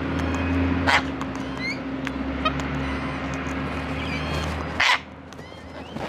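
Sulphur-crested cockatoos giving two harsh screeches, one about a second in and one near the end, with a few short rising chirps in between. A steady low hum in the background cuts off just before the second screech.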